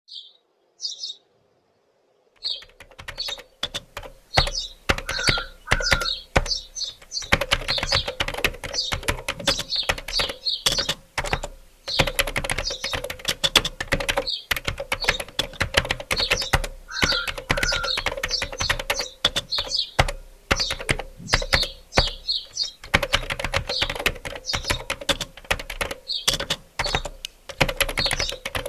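Fast, irregular clicking and clattering that sounds like typing on a keyboard, with short high chirps and a steady low hum underneath. It begins about two seconds in, and the pattern repeats about every twelve seconds.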